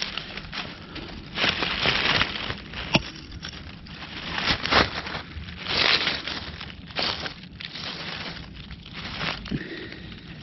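Dry fallen leaves crinkling and crackling as a hand and knife work through the leaf litter, in irregular rustling bursts.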